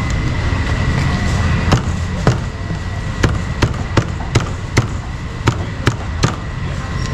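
Cleaver chopping meat on a wooden chopping block: about ten sharp strikes at an uneven pace, starting nearly two seconds in, over a steady background hum.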